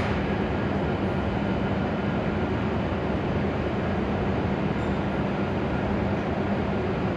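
Steady hum and hiss of an E7-series Hokuriku Shinkansen train standing at the platform, its onboard equipment running while it waits.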